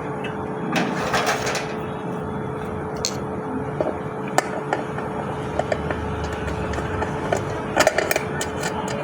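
Packaging being handled while a ceiling fan is unboxed: scattered clicks and knocks, with a short burst of crinkling about a second in and a cluster of clicks near the end, over a steady hum.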